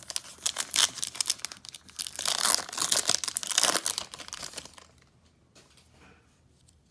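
Wrapper of a baseball card pack being torn open and crinkled, a dense crackling that stops about four and a half seconds in.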